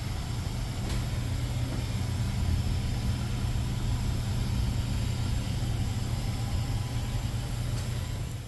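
A steady low mechanical hum that cuts off abruptly near the end.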